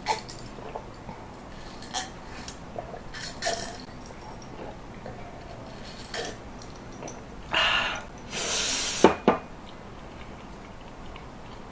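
Glass and dishes clinking at a meal table as a glass of iced orange drink is handled: scattered light clicks, with two short rushing noises about two-thirds of the way in and a couple of sharper knocks right after them.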